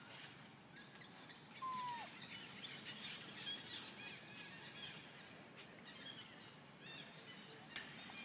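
Small birds chirping and twittering, with one clear falling whistled note about two seconds in and a flurry of quick high chirps just after. A single sharp click comes near the end.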